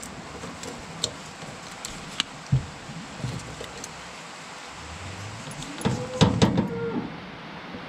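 Small metal clicks and taps of hand tools working at the end of a steel finger-wheel shaft in a corn picker's husking bed, with a thump between two and three seconds in. About six seconds in comes a louder run of metal-on-metal clanks with a brief ringing scrape.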